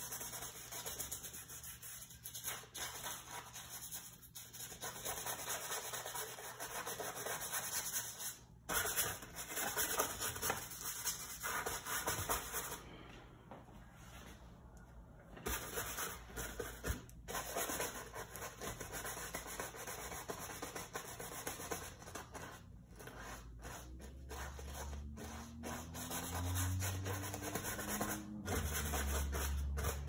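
Bristle brush scrubbing oil paint onto a stretched canvas in repeated strokes, a scratchy rubbing hiss with a brief pause about halfway through. A low hum comes in during the last few seconds.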